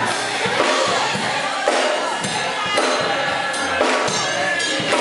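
Live gospel music: a drum kit and tambourine keep a steady beat, about two strokes a second, under singing voices.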